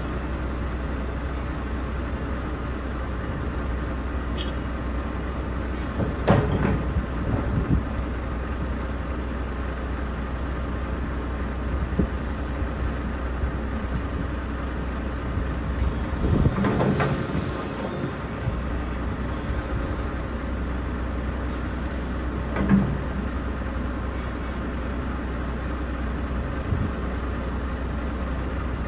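Heavy diesel engine idling with a steady low drone. Occasional metallic clanks and creaks sound over it, clustered about six, seventeen and twenty-three seconds in, and a short hiss comes about seventeen seconds in.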